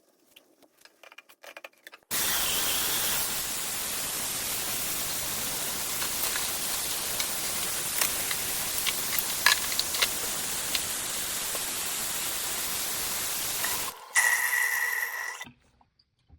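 Water running from a newly installed bathroom faucet into the sink: a steady rushing hiss that starts suddenly about two seconds in. Near the end the flow briefly changes to a higher, whistly sound and then stops.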